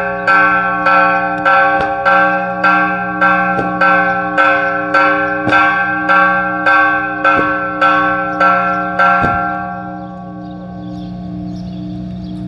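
A single church bell struck over and over at a steady pace, a little under two strokes a second, each stroke ringing the same deep note with its overtones. The strikes stop about nine seconds in and the bell rings on, slowly fading.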